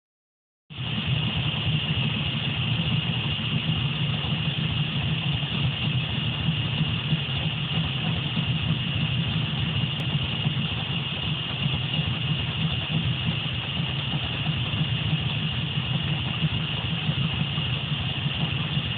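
1970 Chevrolet Camaro engine idling steadily, with a suspected vacuum leak.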